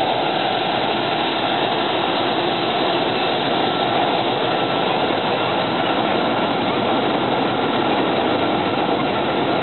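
Jet blast from an airliner's engines at takeoff power, a steady rush of noise blowing over the beach road, with a faint steady whine in it.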